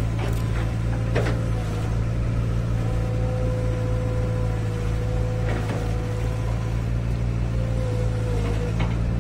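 Excavator diesel engine running steadily, with a thin steady whine above the engine note and a few sharp knocks.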